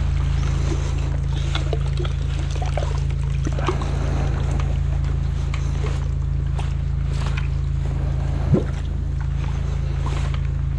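High-pressure drain jetter running steadily as a low engine drone while its root-cutter nozzle works down a blocked stormwater pipe, with light water splashing and trickling in the flooded pit. A single sharp knock comes about eight and a half seconds in.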